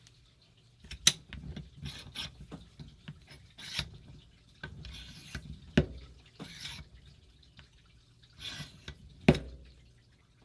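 Hands handling small metal parts and tools on a workbench: a series of sharp clicks and knocks, the loudest about a second in, near the middle and near the end, with short scraping and rubbing sounds in between.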